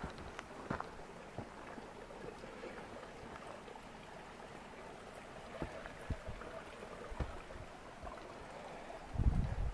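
Footsteps on a rocky forest trail: scattered scuffs and crunches over a steady rushing background, with a heavier run of low thumps near the end.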